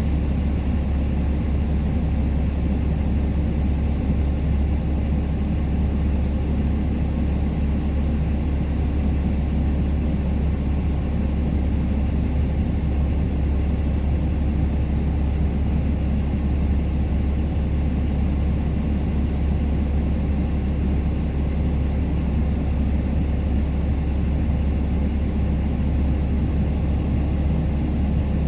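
Truck engine running, a steady low rumble that does not change.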